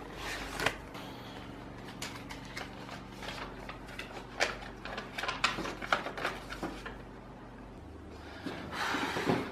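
Paper rustling and crinkling as a folded white sheet is opened and handled, in a string of short rustles and light clicks over a faint steady hum, with a short louder rustling noise near the end.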